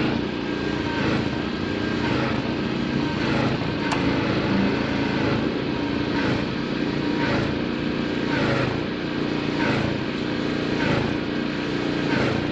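A machine running steadily: a low hum with a faint regular pulse about once a second.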